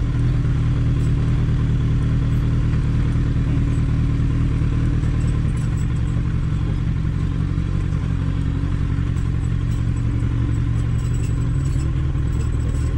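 Kawasaki Ninja 1000's inline-four engine running steadily as the bike rolls down a rough boulder track, with rattling from the bike jolting over loose stones.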